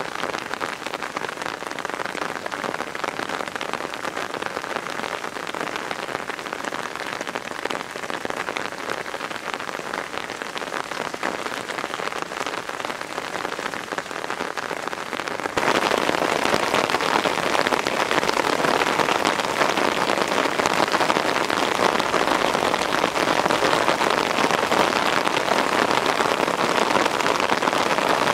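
Heavy downpour, rain pouring steadily onto the ground and surfaces; it gets noticeably louder about halfway through.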